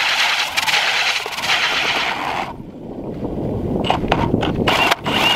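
Strike Master Lite Flite 8-inch ice auger driven by a Milwaukee Fuel 2804 brushless drill, boring through lake ice: a loud, hissing scrape of the blades chewing ice and throwing out chips. It stops about two and a half seconds in, then starts again in short spurts near the end.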